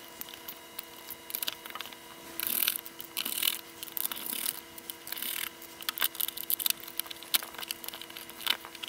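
Circuit boards and the plastic case of a handheld oscilloscope being handled during disassembly: scattered light clicks and taps, with a few short scraping rustles as the boards are worked free and lifted out.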